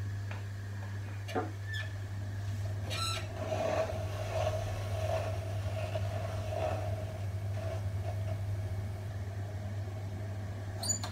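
Electric potter's wheel running with a steady low motor hum. Irregular soft rubbing sounds come in over it from about three seconds in, and there are a few light clicks.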